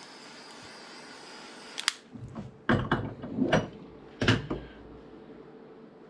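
Butane torch lighter hissing steadily as it heats shrink tubing over a copper cable lug, shut off with a click about two seconds in. A few knocks and clunks follow as the torch and the heavy cable are handled on the wooden workbench.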